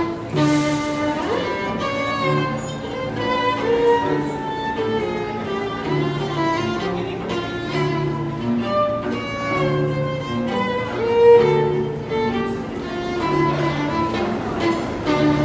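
A violin and a cello playing together live, the cello repeating held low notes under the violin's melody.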